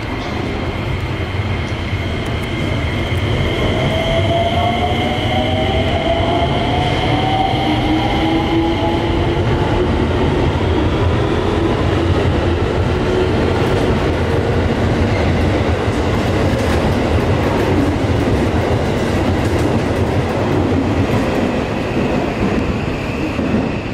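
Electric commuter train pulling out of the platform and running past close by. Its motor whine rises in pitch as it accelerates over the first ten seconds or so, over a steady rumble and clatter of wheels on rail.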